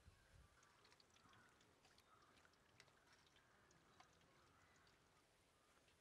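Very faint deep-frying: hot oil in an iron kadai hissing softly, with scattered small crackles and pops, and a soft low thump at the very start.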